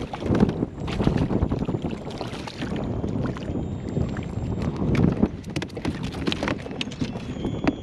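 Wind buffeting the microphone and water moving around a sit-on kayak on choppy salt water, with scattered sharp clicks and knocks.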